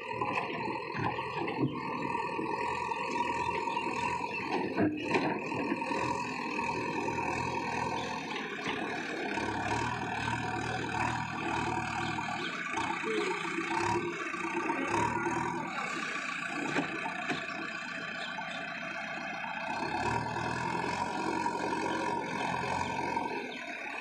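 JCB 3DX backhoe loader's diesel engine running under load as the machine pushes soil through mud with its front loader bucket. The engine works harder and sounds deeper in two stretches, about halfway through and again near the end.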